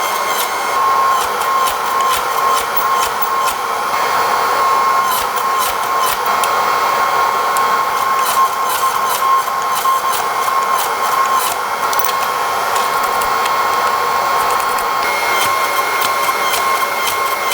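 A steady machine whir with a constant whine, sprinkled with many quick crackling ticks throughout.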